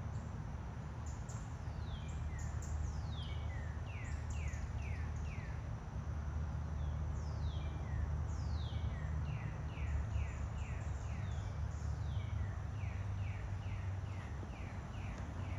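A songbird singing series of quick, downward-slurred high notes, several to the second, with pauses between the series. A steady low rumble runs underneath.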